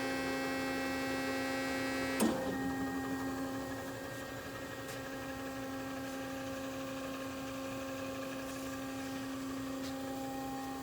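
Hydraulic pump motor of an Amada H-900 HD band saw running with a steady hum. A single sharp clunk about two seconds in, after which the tone shifts a little and settles slightly quieter.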